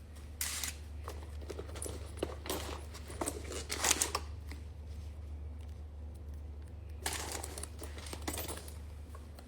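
Irregular rustling and crinkling with scattered clicks, over a steady low hum.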